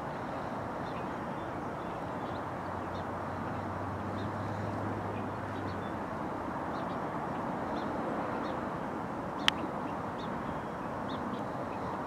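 Distant BNSF diesel locomotive approaching, a low steady hum under an even outdoor rumble, with faint bird chirps coming and going. A single sharp click sounds about nine and a half seconds in.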